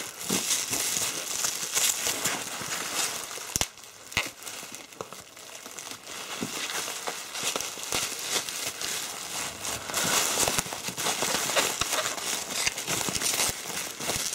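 Bubble wrap packaging crinkling and crackling as it is handled and pulled open by hand, with scattered sharp crackles throughout.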